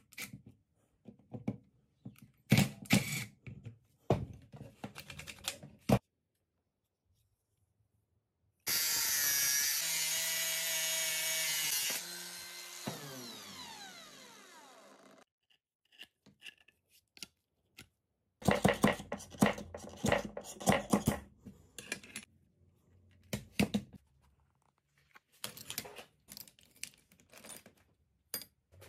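Milwaukee cordless drill-driver running in short bursts as it tightens screws. After a break, a power tool runs loud and steady for about three seconds, then winds down with falling pitch. Later, loose metal screws and hardware clatter while being rummaged through in a plastic box.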